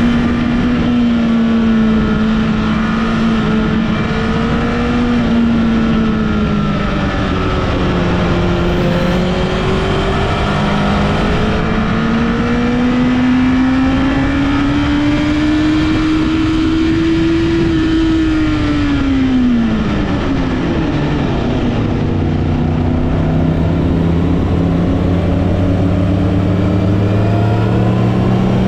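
A vehicle engine under way on a winding road, its pitch rising and falling smoothly with the throttle over a constant rush of wind and road noise. About 20 seconds in the engine note drops steeply and settles at a lower pitch, as when the driver slows or backs off.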